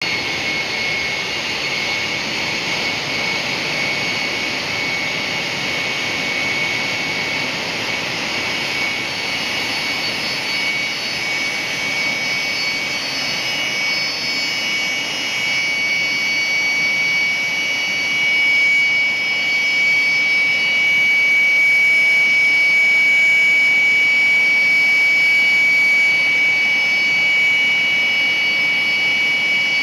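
Large gas turbine engine running steadily on a test stand, heard from in front of its intake: a loud rushing roar with a steady high whine. It grows somewhat louder about two-thirds of the way through.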